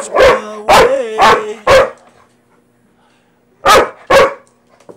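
Dog barking: a quick run of four barks, then two more close together after a pause of about two seconds.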